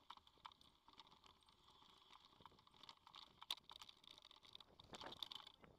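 Faint, irregular clicking and rattling of a mountain bike and its bike-mounted camera rolling over a rough dirt track, with the sharpest click about three and a half seconds in.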